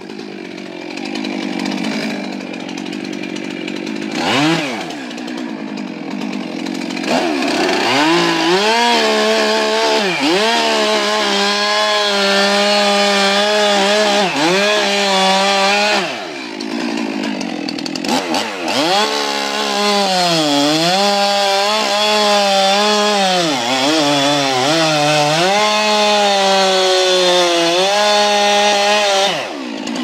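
Stihl two-stroke chainsaw, first running low with a quick blip of the throttle, then held at full throttle as it cuts into a tree trunk. Its pitch sags each time the chain bites into the wood and recovers. The cutting stops briefly about halfway, then resumes, and the saw drops off just before the end.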